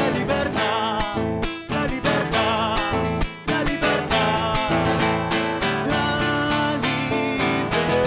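Music with a quick strummed acoustic guitar and a wavering melody line over it.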